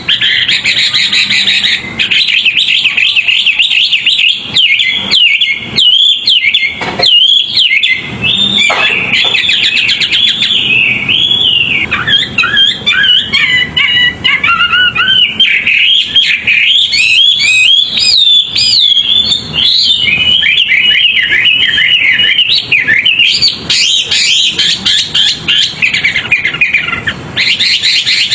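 A songbird singing continuously in a fast, unbroken stream of chirps, trills and gliding whistles, with no pauses. The song dips to lower notes for a few seconds around the middle.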